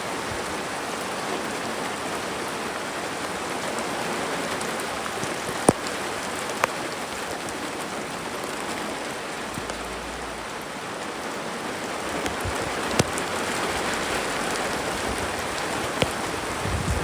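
Steady rain falling and pattering on surfaces, with a few sharp single drop hits standing out now and then.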